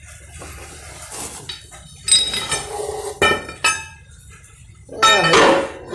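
Steel hand tools clinking and ringing against each other: a few sharp metallic clinks, with a louder ringing cluster near the end.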